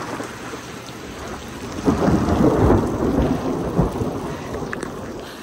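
Heavy rain falling steadily, with a rumble of thunder about two seconds in that swells and then fades over a couple of seconds.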